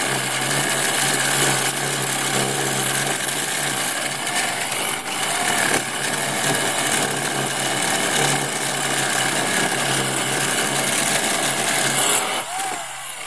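Electric drill turning a DeWalt diamond-impregnated core bit as it grinds through a brick wall, a loud steady motor whine over the grinding. The motor falters briefly twice in the middle and stops near the end.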